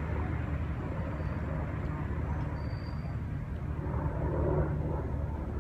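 Steady low rumble of motor traffic.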